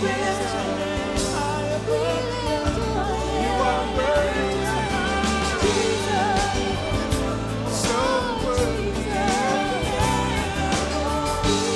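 Contemporary worship song with singing over a band, steady bass and beat.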